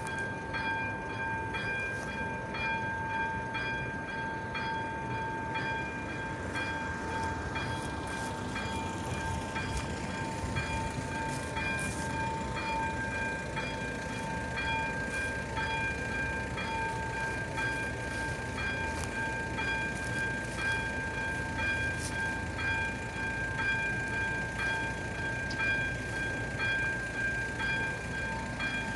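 Electronic warning bell of an AŽD 71 level-crossing signal ringing continuously, a steady high ringing tone with a regular repeating pulse, warning road traffic of an approaching train.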